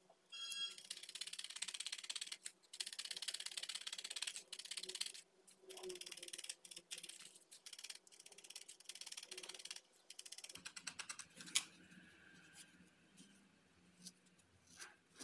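Felting needle jabbing rapidly and repeatedly into wool over a foam pad: fast scratchy pokes in runs of a second or more with short pauses. The pokes stop about ten seconds in, leaving soft rustling of wool fibres handled by fingers and one sharp click.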